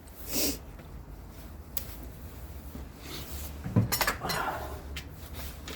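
Metal hand tools clinking and scraping against each other and the suspension hardware, with a cluster of sharp clanks and a scrape about four seconds in, over a steady low hum.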